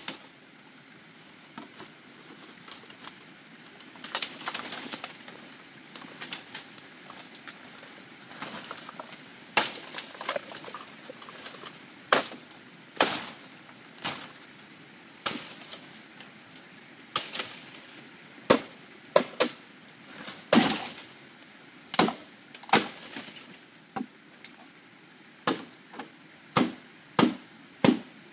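Green bamboo stalks being chopped: sharp, irregular strikes, sparse at first and then coming about every second from around ten seconds in.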